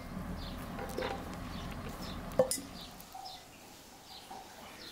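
A metal spoon clinks twice against the cookware as boiled carrots are lifted from the pot into an enamel bowl, the second knock louder and ringing briefly. A small bird chirps repeatedly with short falling notes.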